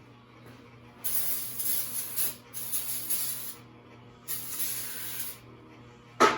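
An aerosol spray can hissing in three bursts of about a second each, then a single sharp knock near the end.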